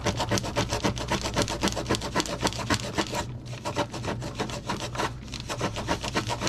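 Sandpaper rubbing back and forth on a small carved lure body in quick rasping strokes, several a second, pausing briefly twice: hand-sanding the popper to shape after cutting.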